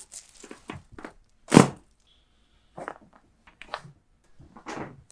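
A chiropractic adjustment: one loud, sharp thud-like crack about a second and a half in, with a few softer knocks before and after it.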